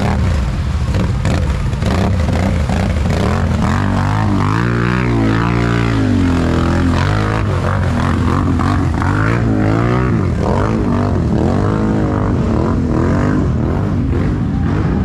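ATV engine running and revving, its pitch rising and falling several times over a steady low drone.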